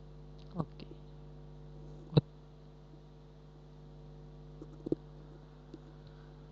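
Computer mouse clicks, a few single clicks with the loudest about two seconds in and a quick pair near five seconds, over a steady electrical hum.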